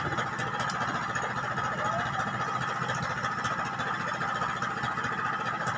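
An engine on board running steadily at idle, an even hum with a held whine over it.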